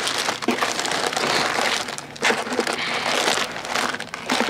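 Crinkling and crackling of a plastic sweets packet being handled and torn open.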